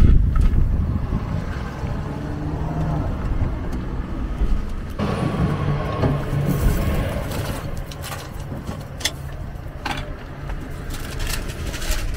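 Steady low engine rumble, with a few sharp metallic clicks late on as the cast-iron taiyaki molds are handled.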